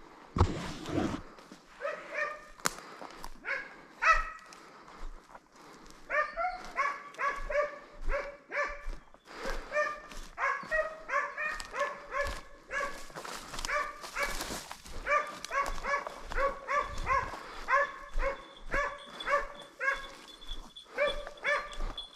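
Hunting hound giving voice on a hare's trail: a long run of short, high, repeated yelping barks, about two to three a second. A loud low rush of wind or handling noise comes just after the start.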